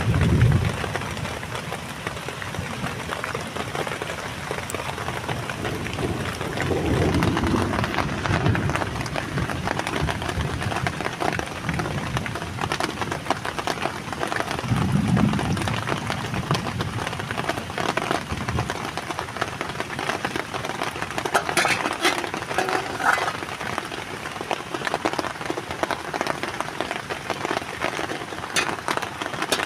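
Heavy rain falling steadily, with low rumbles of thunder at the start and again about seven and fifteen seconds in.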